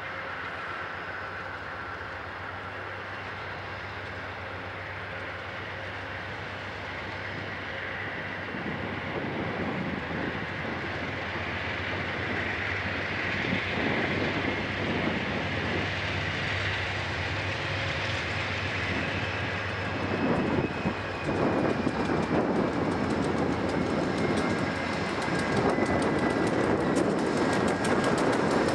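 Amtrak passenger train approaching out of sight, growing steadily louder, with wheels clattering over the rails. A thin high tone slides slightly lower over the last several seconds.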